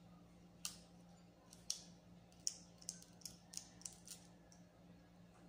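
Light, irregular clicks and taps, about a dozen, from fingers and fingernails handling a smartphone, its tempered glass screen protector and the peel-off film.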